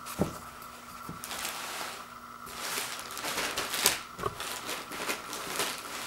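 Two soft thumps of toilet paper rolls set down on a wood floor within the first second. Then thin plastic packaging crinkles and rustles in short bursts as the rolls are pulled out of it.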